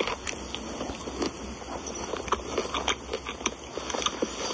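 A person biting into and chewing a Burger King Whopper: many short, irregular mouth clicks and smacks.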